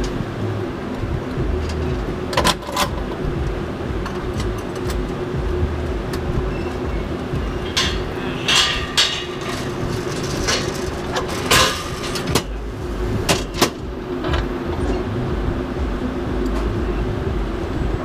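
Wind rumbling on an action camera's microphone over a steady mechanical hum, with scattered sharp metallic clicks and clanks from the zipline seat rig, most of them in the middle of the stretch.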